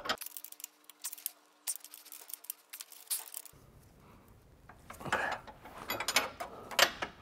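Steel wrench clicking and clinking on a ball joint stud's lock nut and the surrounding suspension metal as the nut is tightened a small turn at a time. The clicks are scattered, with a few louder clinks in the second half.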